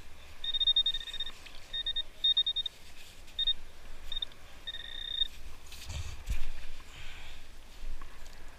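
Handheld metal-detector pinpointer probing wet sand, giving a run of high-pitched beeps of uneven length, short and long, that signal metal buried in the hole. The beeps stop about five seconds in, and a low thump of sand being handled follows.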